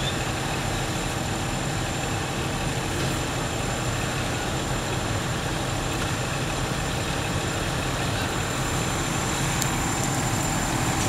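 Fire engine idling at the scene of a fire, a steady low engine drone that does not change.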